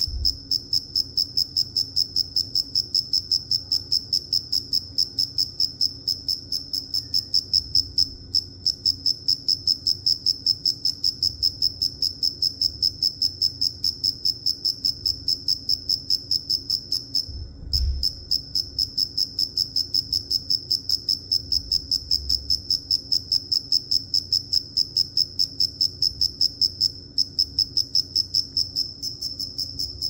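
A cricket chirping, a steady run of short, high chirps in quick succession. It breaks off briefly about 8 seconds in, again just before 18 seconds with a low bump, and near 27 seconds.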